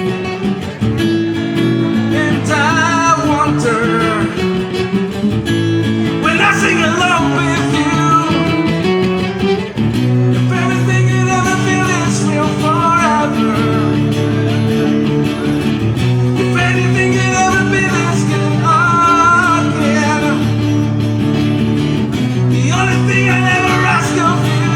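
A song with guitar and a singing voice: sung lines come in short phrases every few seconds over steady guitar chords.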